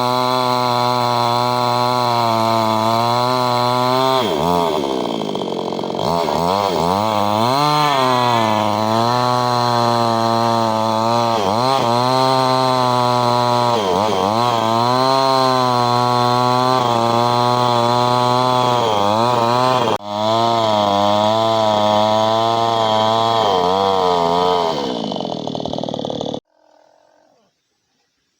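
Freshly restored Stihl chainsaw engine running, revved up and down several times between a steady high idle, then cut off suddenly near the end.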